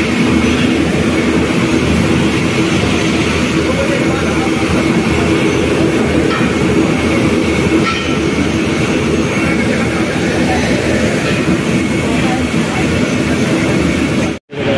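Steady, loud din of heavy machinery in a leaf-spring factory hall, with a constant low hum running under it.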